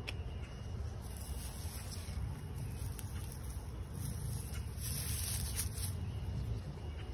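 Outdoor backyard ambience: a steady low rumble, with a faint rustle of straw mulch under a hand about five seconds in.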